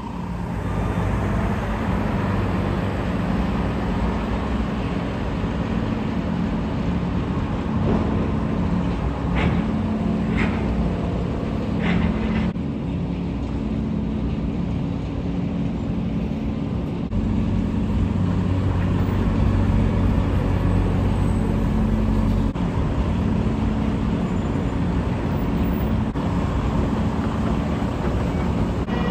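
Semi-truck's diesel engine running steadily, growing louder about two-thirds of the way through as the truck pulls in toward the dock. There are three short high chirps near the middle.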